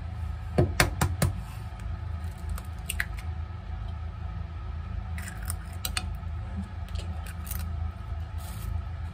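A hen's egg cracked into a glass measuring cup: a few sharp taps of the shell about a second in, then lighter clicks and crackles as the shell is pulled apart, over a steady low hum.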